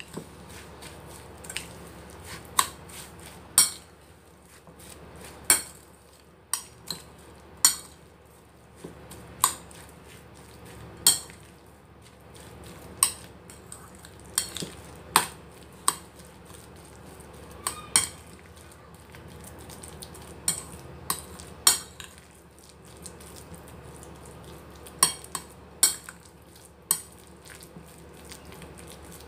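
A metal utensil stirring a thick minced pork and breadcrumb mixture in a ceramic bowl, clinking sharply against the bowl at irregular intervals, about one to two clinks a second, over a soft scraping.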